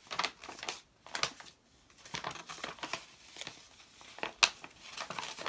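Packaging crinkling and rustling unevenly as hands handle and open the wrapper of a fabric pre-cut, with a sharper crackle about four and a half seconds in.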